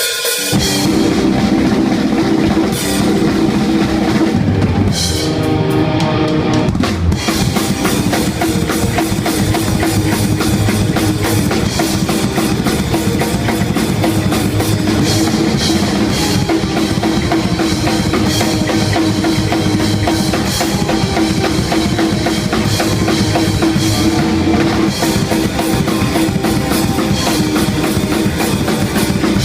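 Hardcore band playing a song at full volume, the drum kit up front with fast kick, snare and cymbal hits over guitar. The cymbals drop out briefly about five seconds in, and a hit near seven seconds brings the full kit back.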